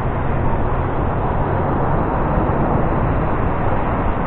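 Steady noise of ocean surf breaking and washing up the beach.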